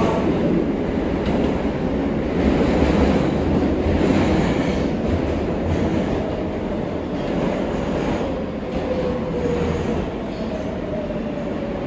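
R143 subway car running on the rails, a steady rumble of wheels and track. In the second half a faint whine slides down in pitch and the overall noise eases a little.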